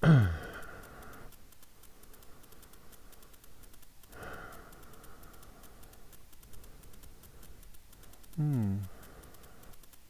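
A person's voice: short wordless vocal sounds, one falling in pitch right at the start and a brief wavering one near the end, with faint rapid ticking throughout.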